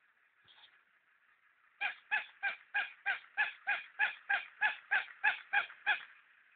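Battery-operated walking plush puppy toy barking: a quick string of about fourteen short, honking electronic yaps, about three a second, over the faint steady whir of its motor. The barking stops abruptly near the end.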